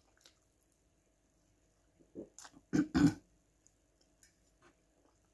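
A woman clearing her throat while eating: two short sounds close together about three seconds in, after a fainter one a little earlier.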